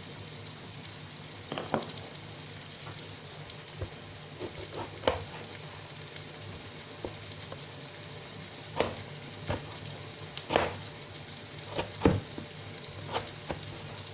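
Onions, tomatoes and scotch bonnet peppers frying in oil in a pot, a steady sizzle, with sharp knocks and clicks at irregular intervals.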